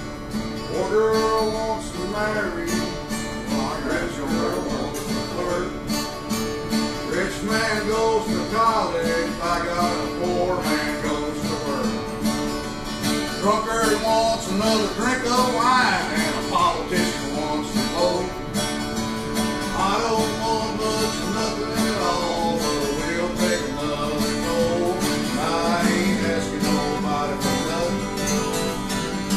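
Country-style acoustic guitar music: chords strummed in a steady rhythm under a melody line that slides and bends in pitch.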